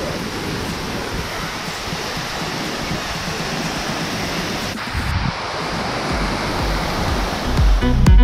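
Waterfall pouring down a rock face into a pool: a steady rush of falling water. A low rumble builds in the second half, and music comes in right at the end.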